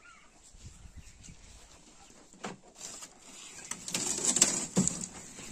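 Footsteps and small knocks, then from about three seconds in a loud rustling clatter with a sharp knock near the end, as the way is made into a poultry shed.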